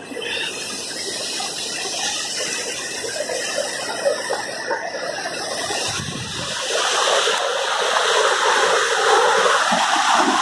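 Rammam mountain river rushing steadily, the rush growing louder about two-thirds of the way in.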